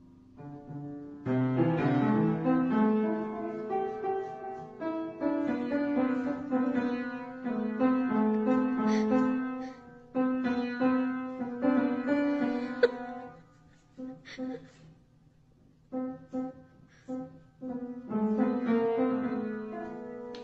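Upright piano keys pressed by a cat's paws: notes ring and overlap in uneven clusters, thinning to a few separate single notes past the middle before another cluster near the end.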